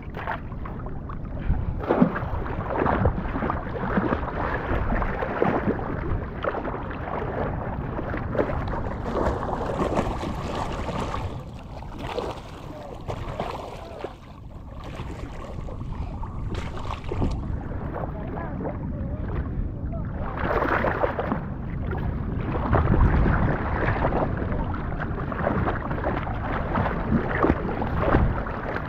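Rough surf washing and splashing around, with wind buffeting the microphone; the noise swells and eases unevenly, dipping briefly about halfway through.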